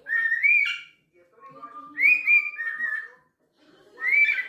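A pet parrot whistling three short phrases. Each phrase glides up and down in pitch and is separated from the next by a second or so of quiet.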